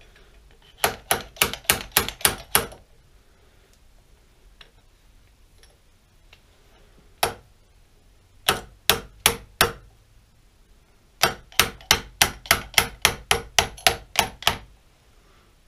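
Hammer tapping a gear onto a lathe lead screw, striking a copper nut threaded on the shaft end: three runs of sharp metallic taps at about four a second, with a single tap between the first and second runs.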